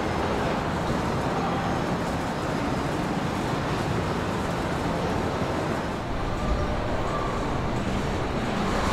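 Steady machinery noise of a truck assembly plant floor, an even rumble and hiss with no distinct events.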